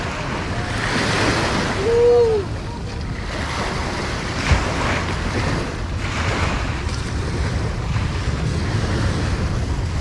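Small waves washing onto a sandy beach, the surf hiss swelling and fading several times, with wind rumbling on the microphone. A short rising-and-falling call, the loudest moment, sounds about two seconds in.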